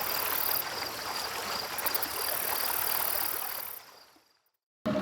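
Motorboat running across open water: a steady rush of wind and water noise that fades out to silence near the end.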